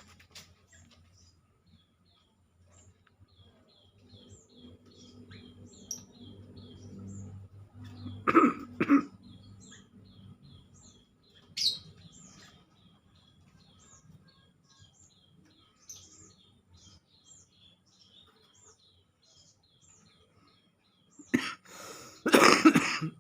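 A man coughs twice in quick succession about eight seconds in, and again harder and longer near the end. Under the coughs, small birds chirp steadily, two or three short chirps a second.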